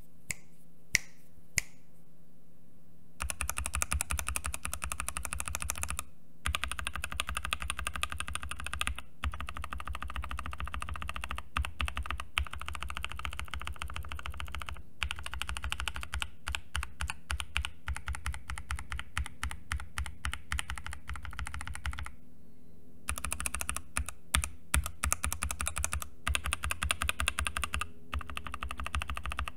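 Typing on C3 Kiwi tactile switches in a hot-swap GK68XS mechanical keyboard with OEM-profile keycaps. The switches are lubed with Krytox 205g0 on the housings, with the stems lubed on some, and fitted with Deskeys films. A few single clicks come first, then fast continuous typing from about three seconds in, in runs with brief pauses between them.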